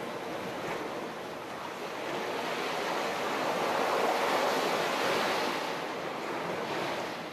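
Ocean waves washing in: a steady rush of surf that swells up to a peak a few seconds in and eases off, with a smaller swell near the end.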